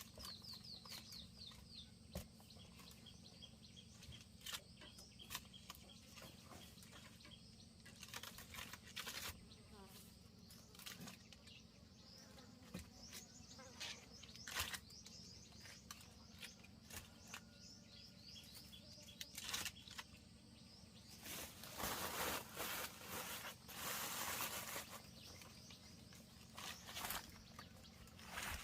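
Quiet outdoor ambience with high chirps, scattered clicks and knocks, and a few seconds of louder rustling about three-quarters of the way through.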